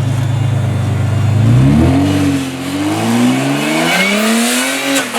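Modified off-road 4x4 competition truck's engine. It runs at a low, steady pitch, then about two seconds in it revs up and down several times as the throttle is worked, with a hiss underneath in the second half.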